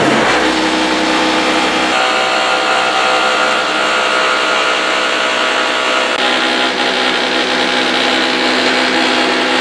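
Electric maize mill running and grinding maize: a loud, steady whirring grind with a steady motor hum under it.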